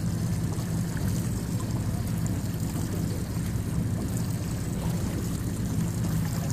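Boat engine running with a steady low hum, with water trickling and splashing against the hull.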